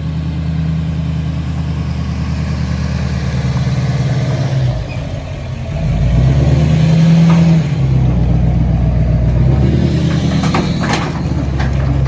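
Pickup truck engine running as it drives past towing an empty tandem-axle dump trailer, the engine note dipping and then swelling louder a few times as it changes speed. A few sharp clanks near the end.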